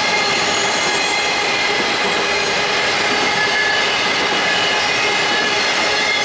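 Union Pacific intermodal double-stack container train rolling past at speed: a steady, loud rush of wheels on rail, with several thin, steady high wheel-squeal tones over it.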